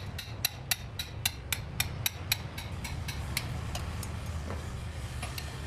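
Quick light metallic taps, about four a second, of a thin steel rod worked around the top of a cylinder bore in a bare cast-iron Massey Ferguson 240 engine block. The tapping stops about three and a half seconds in. A low steady hum runs underneath.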